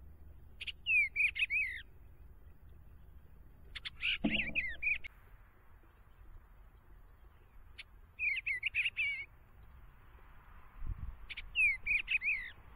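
Bluebird song: four short, warbled phrases of rising and falling notes, each about a second long and a few seconds apart.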